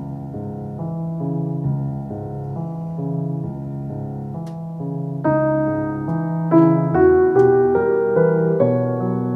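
Slow classical solo piano played through a 4th-generation Amazon Echo smart speaker. The piece is gentle at first, and the notes and chords grow louder from about halfway through.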